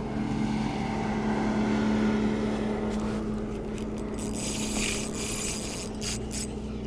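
A motorboat engine running with a steady hum, loudest about two seconds in and easing after. A rushing hiss comes in about four and a half seconds in.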